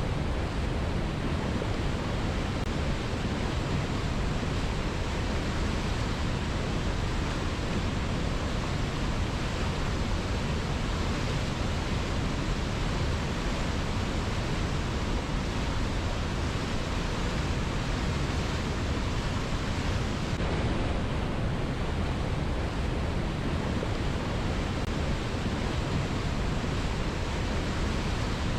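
River water rushing, a strong, steady flow with an even hiss and deep rumble that doesn't change.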